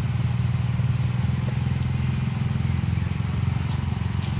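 Diesel engine of heavy construction machinery running steadily, with an even, unchanging low pitch.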